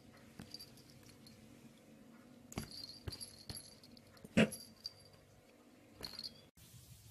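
Two cats play-fighting, with light scuffling and a few small high jingles. One short animal cry, the loudest sound, comes about halfway through.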